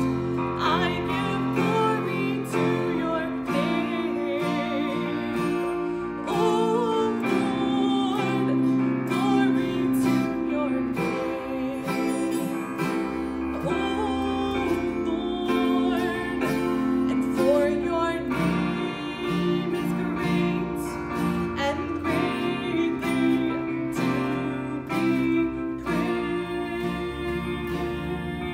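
A woman singing, accompanied by an electronic keyboard and a strummed acoustic guitar.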